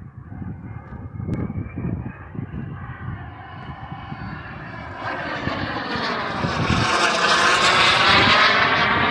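Harlock-RC Viper 250 radio-controlled model jet flying past, its engine rush growing louder from about halfway through and loudest near the end, with a whoosh that sweeps in pitch as it approaches. Wind buffets the microphone.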